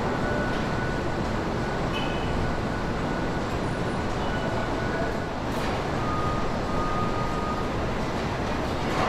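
Steady machinery noise of a truck chassis assembly line, with a few faint whines and light clicks over it.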